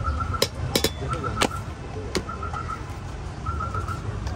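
A few sharp clicks and knocks from a street food vendor's utensils and lidded plastic mixing container, over a steady street rumble. A high chirp repeats in quick runs of four or five.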